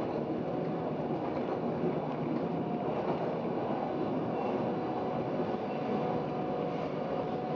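Stadler GTW 2/6 railcar running along the track, heard from inside the passenger compartment: a steady rumble from the wheels and running gear, with a faint steady whine.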